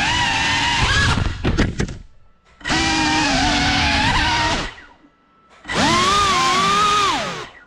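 Brushless motors and propellers of a Cinelog35 cinewhoop FPV drone whining, the pitch rising and falling with the throttle. A quick run of sharp clicks comes about a second in, and the whine cuts almost to nothing twice as the throttle is dropped, then comes back abruptly.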